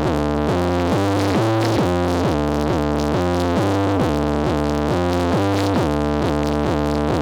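Brazilian funk track playing loud through a pickup's aftermarket car sound system: a steady beat of deep synth bass notes, each sliding down in pitch as it ends.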